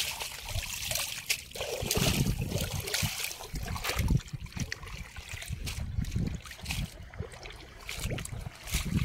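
Water splashing, sloshing and trickling as hands stir and scoop inside a bamboo-framed mesh net lying in shallow water, in irregular bursts of small splashes.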